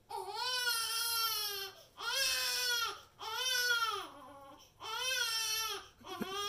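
Five long wailing cries in a row, each about a second, rising and falling in pitch, with short gaps between.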